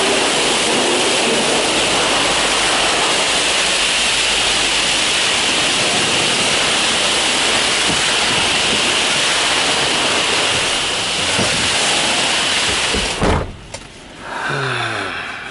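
High-pressure water spray washing a semi truck, a loud steady hiss. About 13 seconds in a cab door shuts with a thump and the spray goes muffled, heard from inside the cab against the windshield.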